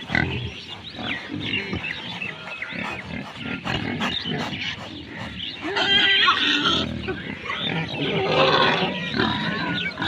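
A group of pigs grunting continuously at close range, with louder, high-pitched squeals about six seconds in and again around eight to nine seconds.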